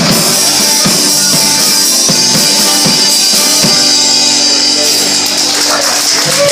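Live rock band playing an instrumental stretch: drum kit hits over sustained held chords.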